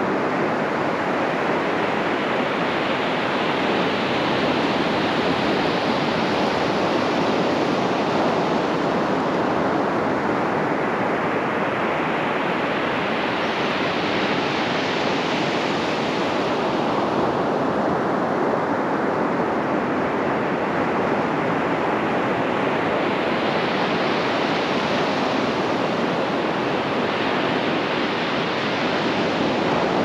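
Ocean surf washing onto a sandy beach: a steady rush of breaking waves, its hiss swelling twice and easing as waves break and draw back.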